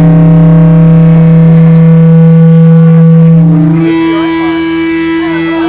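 Live instrumental surf rock band holding one long, loud droning note. About three and a half seconds in it gives way to a higher held note.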